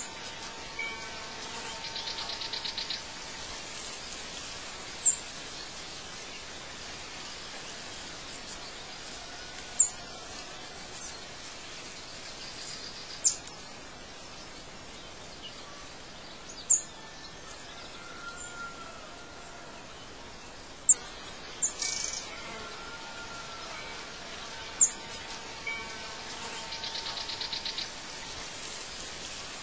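Birdsong over a steady background hiss: sharp, brief high chirps every few seconds, and two short buzzy trills, one near the start and one near the end.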